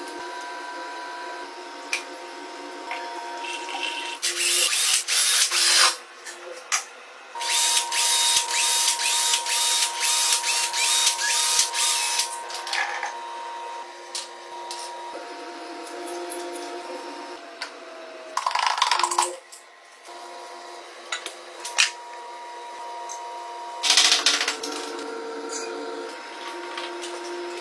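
Metal engine parts of a Honda CG125 being dismantled with a power tool: several bursts of tool noise, the longest about four seconds, with short clinks of metal parts in between over a steady hum.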